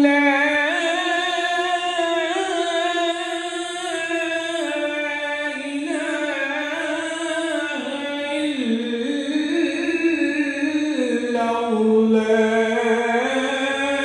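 A naat, an Urdu devotional song praising Madina, sung by a solo voice in long held notes that glide slowly up and down, with no beat.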